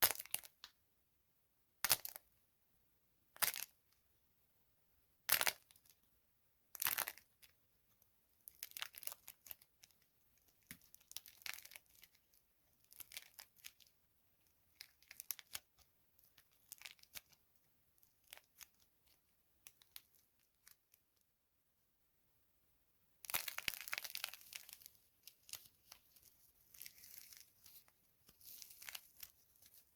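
Dry soap crushed and crumbling. Five sharp crunches come about a second and a half apart, then a long run of small crackling crumbles, with a louder, denser burst of crumbling about three-quarters of the way through.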